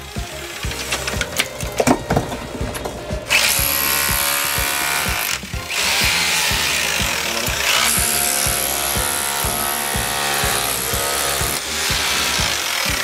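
A cordless power drill boring into a brick wall, running in long bursts with short pauses. The first few seconds hold irregular knocking and chipping at the brick.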